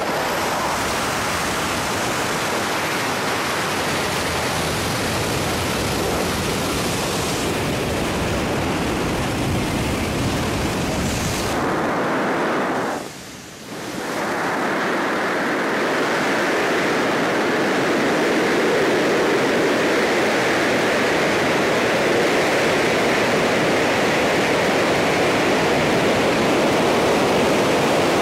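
Steady rush of air over the camera microphone during wingsuit flight, a loud even noise that drops away briefly about halfway through and then returns.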